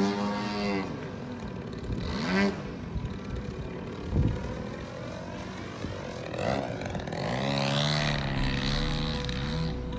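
Engine of a propeller-driven model airplane in flight, its pitch rising and falling as it passes.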